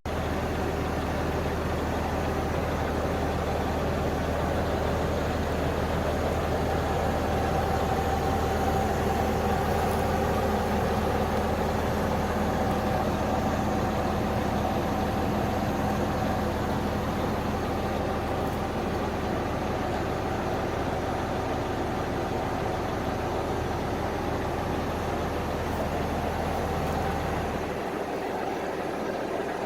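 Volvo B58 bus's six-cylinder diesel engine running steadily at idle, a constant low hum whose deepest part drops away shortly before the end.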